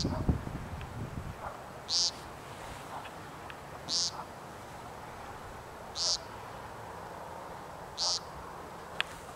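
Male American woodcock giving its nasal, buzzy "peent" call from the ground, one short call about every two seconds: the ground part of its spring courtship display, given between display flights.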